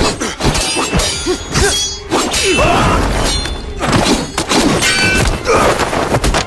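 Sword-fight sound effects: metal blades clashing again and again, each clash ringing, mixed with heavy thuds and crashes of bodies and blows.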